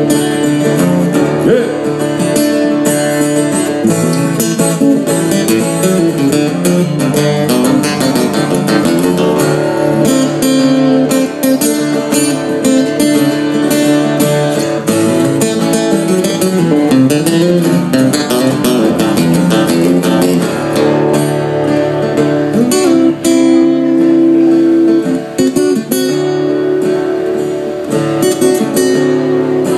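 Acoustic guitars playing an instrumental break in a country song, strummed chords running steadily throughout.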